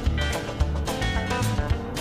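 Background music: an upbeat instrumental with plucked guitar, bass and a steady beat.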